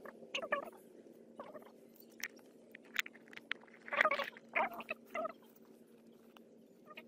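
Infant macaque nursing at its mother's chest, giving short squeaky whimpers in a handful of brief bursts, the loudest about four seconds in.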